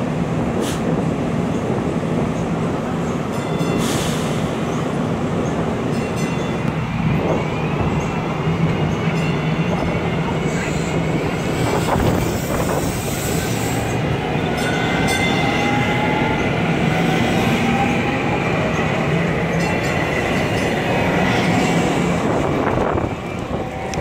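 DART light rail train pulling out along the platform, its electric motors whining in a rising pitch as it gathers speed over a steady rumble of wheels on the rails.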